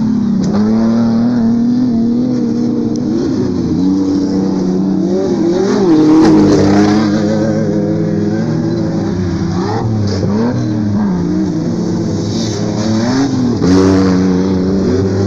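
Off-road race trucks' engines revving up and down as they race past on a dirt track, several engines overlapping. The sound is loudest about six seconds in and again near the end.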